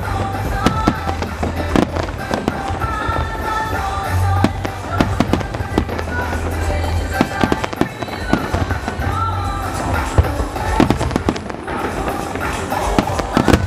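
Fireworks banging and crackling in rapid, irregular bursts, over loud music with a melody.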